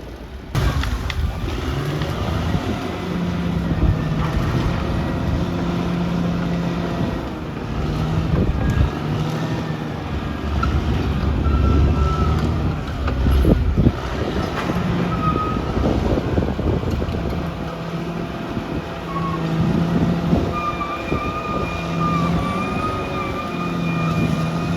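Caterpillar D6R XL bulldozer's diesel engine working, its note rising and falling with the load, with occasional sharp clanks. A high wavering whine comes and goes over it and is steadiest near the end.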